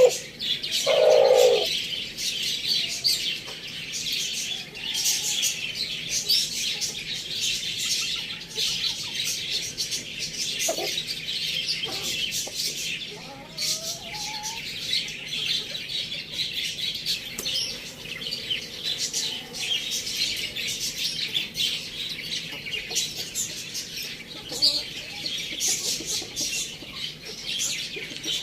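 Many small birds chirping continuously in a dense chorus of short, high calls, with a short, louder, lower call from a larger bird about a second in.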